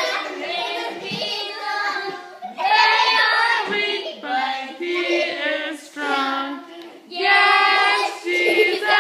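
A group of young children singing together in high voices, in phrases broken by short pauses.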